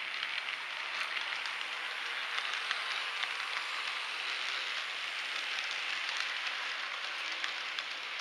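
Model railway freight wagons rolling along the track: a steady rushing clatter of small wheels on rail, with many fine rapid clicks.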